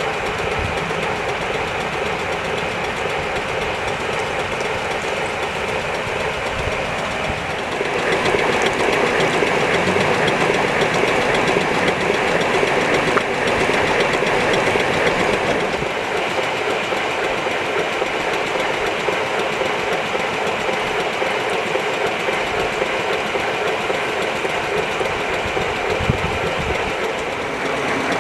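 5 inch gauge live-steam model of a Southern Railway King Arthur class 4-6-0 locomotive running on rollers: a steady clatter of wheels, motion and steam. It grows louder from about a third of the way in while the wheels spin fast, then eases back a little.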